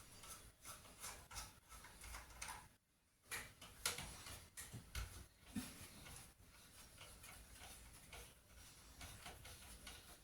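Faint, irregular clicks and light knocks from handling the parts of an old desktop PC during disassembly, with the sharpest click just before the halfway point.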